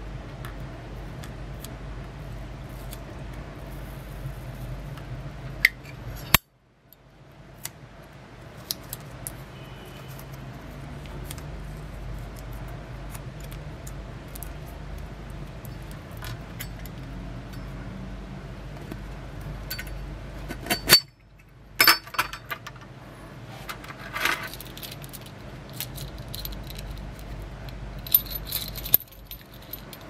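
Small metal clicks and jingling of a Zippo aluminium fuel canister's snap hook, chain and split ring as it is handled. The clicks are scattered over a steady low hum, with louder clusters about two-thirds of the way in and near the end.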